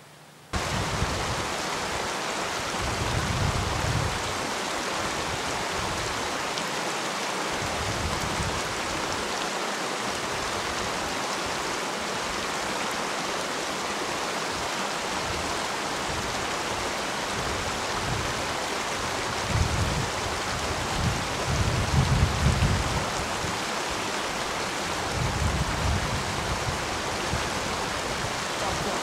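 Wind buffeting the microphone: a steady loud rushing hiss that starts abruptly, with irregular low rumbling gusts, strongest about twenty to twenty-three seconds in.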